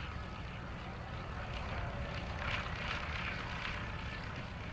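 A Fieseler Storch-type light aircraft's engine and propeller running as it taxis across grass. A steady rough drone swells and fades slightly, with wind rumbling on the microphone underneath.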